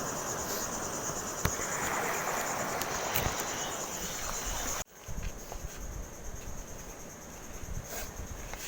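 A chorus of insects, likely crickets, chirring steadily on a high pulsing note over outdoor background noise, with a few sharp clicks. The sound drops off abruptly about five seconds in, then the chorus goes on fainter.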